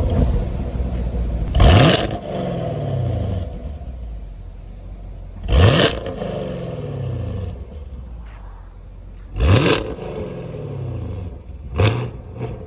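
Chevrolet Camaro SS V8 engine revving hard about five times, each rev sweeping sharply up and then falling away over a second or two.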